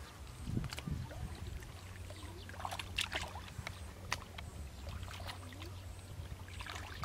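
Hands splashing and squelching in shallow muddy water as they grope through the mud, with scattered irregular splashes over a low steady hum.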